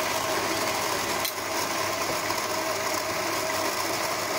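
Baratza Vario flat ceramic burr coffee grinder running steadily, grinding coffee beans on a timed grind for a double shot, with a constant motor tone.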